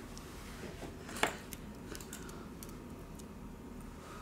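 A sharp click about a second in, with a few fainter ticks around it: the Redmi 7A's flex cable connector snapping into its socket on the motherboard under fingertip pressure.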